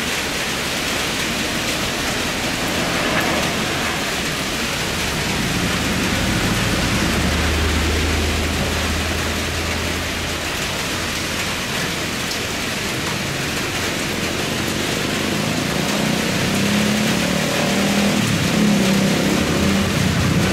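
Steady hiss of rain falling, with a landing Airbus A350 jet airliner under it. In the last few seconds a deeper, louder engine drone builds as the jet rolls out on the wet runway.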